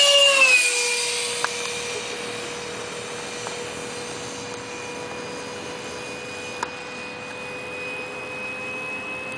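Electric ducted fan of an RC Mirage 2000 jet making a low pass: a loud whine whose pitch drops as the jet goes by about half a second in, then a steady, fainter whine as it flies away, rising slightly in pitch near the end.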